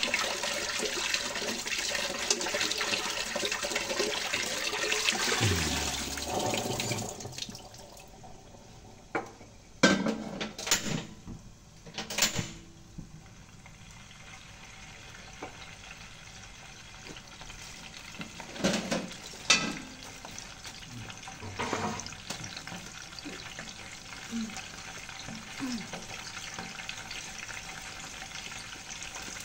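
Kitchen tap running into a sink while food is rinsed, shut off about seven seconds in. Several sharp knocks and clatters of dishes follow.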